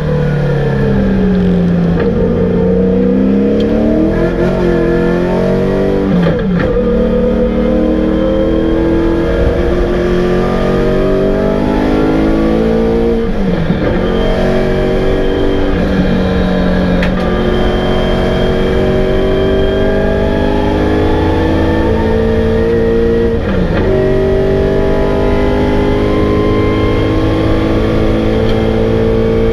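A 1991 Holden VN Commodore Group A touring car's 5.0-litre V8, heard from inside the cabin under racing load. The engine note climbs steadily through each gear and drops sharply at three upshifts, about a fifth of the way in, near halfway and about four fifths in.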